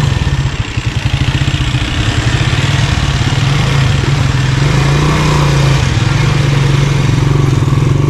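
Honda TMX 155's single-cylinder four-stroke engine running through a Takasago stock-type muffler as the motorcycle is ridden slowly. The revs drop briefly about half a second in, with each exhaust pulse distinct, then pick up and hold steady.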